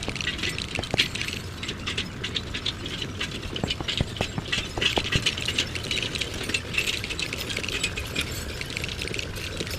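Plastic LEGO bricks clicking and clattering: a dense, irregular run of small, sharp clicks.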